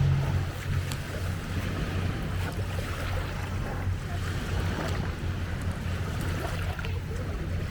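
Small lake waves lapping at the shore, with a steady low engine hum underneath and some wind.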